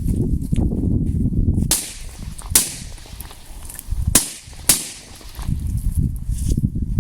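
Four homemade firecrackers going off one after another, each a single sharp crack, the last two about half a second apart.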